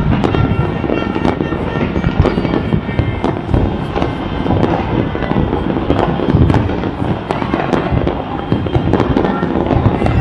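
Many fireworks going off at once: a dense, unbroken crackle of pops and bangs.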